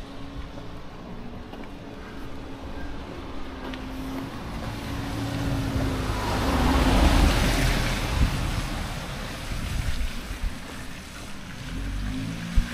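A motor vehicle passes close by, its noise swelling to a peak about seven seconds in and then fading, over a steady low engine hum.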